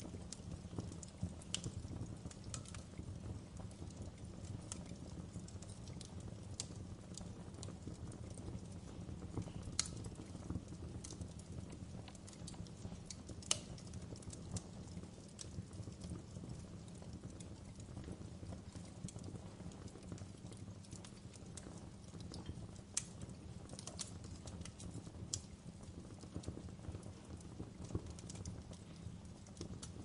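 Wood log fire in an open fireplace crackling: irregular sharp snaps and pops, a few louder than the rest, over a low steady rumble.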